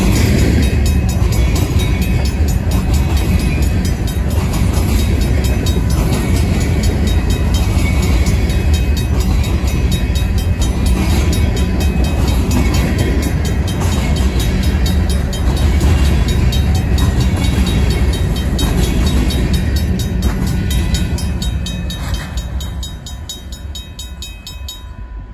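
Loaded covered hopper cars of a grain train rolling past, their wheels and trucks rumbling steadily on the rails, fading away as the last car clears the crossing near the end. Over it, the crossing's mechanical bell rings in an even, rapid rhythm and stops suddenly at the very end.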